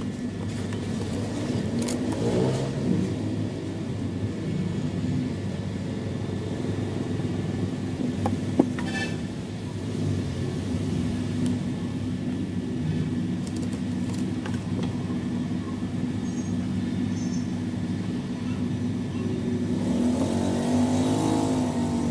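Steady low engine rumble that rises and falls in pitch a couple of times, most clearly near the end, with one sharp click about eight and a half seconds in.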